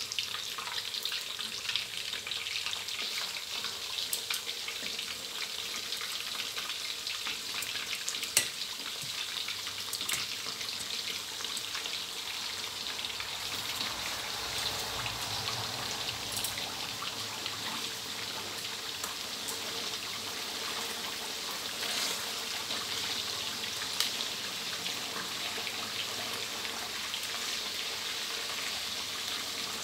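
Pieces of fermented fish (pla som) deep-frying in hot oil in a steel wok: a steady sizzling hiss with scattered crackling pops, the sharpest about eight seconds in.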